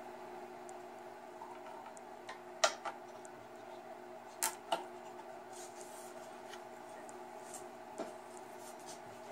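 A few faint clicks and knocks from a wooden walking-stick fiddle being handled before playing, over a faint steady hum.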